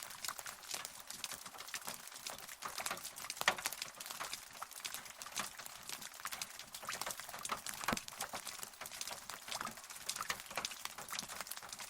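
Rain pattering: many separate drops ticking irregularly, with a few louder drops standing out, and no thunder.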